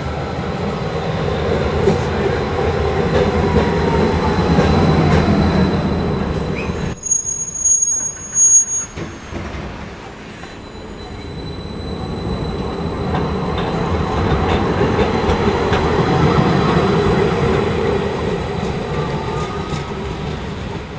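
Low-floor electric tram running by on street track: wheel rumble and running noise swell and fade, with some wheel squeal. A high steady tone stands out for about two seconds near the middle, after which a second pass swells and fades again.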